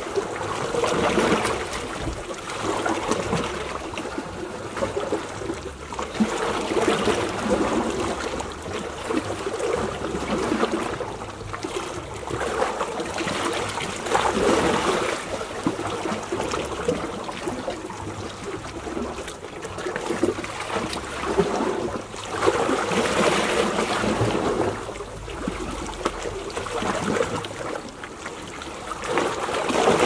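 Small sea waves lapping and trickling among shoreline rocks, each wash swelling and fading every few seconds.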